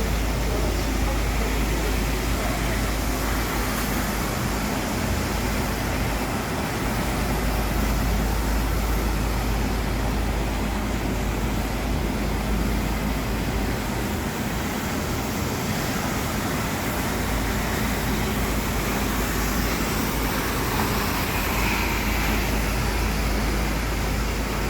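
Ranger 660B wet floor-cleaning machine running steadily, a constant machine noise with a low rumble and a steady hum that holds the same level throughout.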